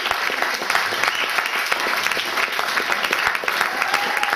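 Audience applauding, a dense, steady clapping that holds at one level.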